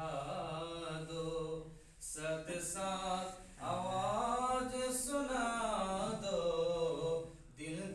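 Unaccompanied male chanting of a devotional Arabic salawat in milad recitation, sung in long melodic phrases with short breaks about two seconds in and again near the end.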